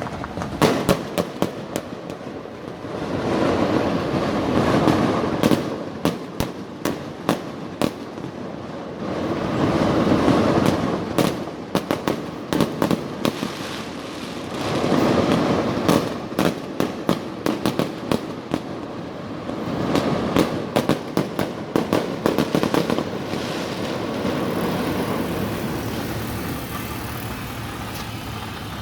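Consumer fireworks going off close by: a rapid series of sharp bangs and pops, with swells of rushing, crackling noise about every five seconds, thinning out near the end.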